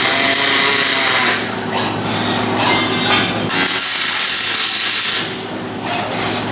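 Robotic welding cell at work: repeated bursts of harsh hissing noise, each a second or two long, over a steady hum.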